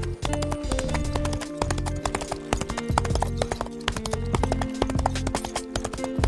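Horse hooves clip-clopping in a quick, uneven run of hoofbeats, over background music with a steady low beat.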